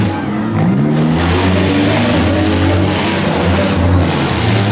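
Demolition derby cars racing, their engines revving and accelerating with pitch rising and falling, several engines overlapping.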